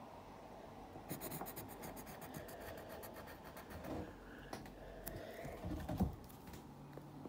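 White colored pencil scratching across lined notebook paper in rapid short strokes, starting about a second in, with a few louder knocks, the biggest near the end.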